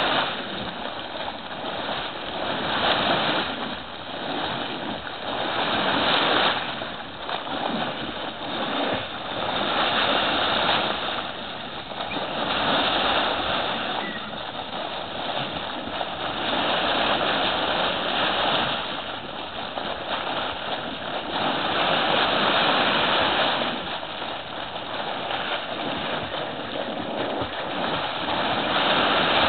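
Condensate gushing and bubbling up through a pool of water from a leaking pipeline, a steady frothing rush that swells and eases every few seconds.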